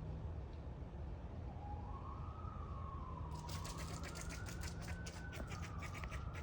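A siren wailing slowly up and down, joined about three seconds in by a squirrel's rapid barking chatter, about four or five sharp calls a second, over a steady low background rumble.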